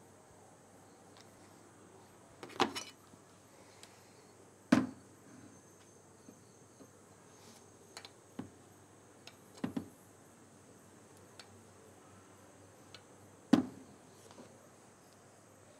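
Small parts of the gear-shift lever assembly being handled and fitted together by hand: irregular clicks and knocks, a few sharper than the rest. A faint, steady chirping of crickets runs underneath.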